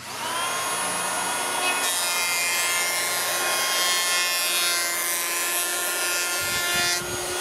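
Popoman 18 V cordless twin-blade planer spinning up and shaving a wooden beam at a 0.4 mm cut: a steady, high motor-and-cutterhead whine with the rasp of the blades cutting the wood, which comes in about two seconds in.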